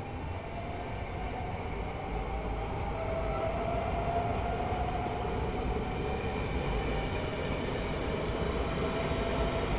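Trenord double-deck electric train running past a station platform: a steady rumble of wheels on rails with a faint whine that wavers slightly in pitch, growing gradually louder.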